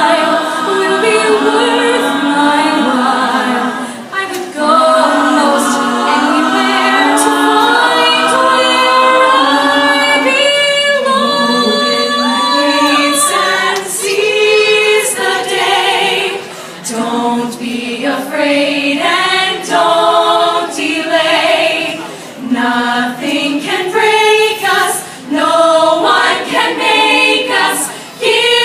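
All-female a cappella group singing in close multi-part harmony, with no instruments. Long held chords give way, about halfway through, to short, choppy rhythmic vocal notes.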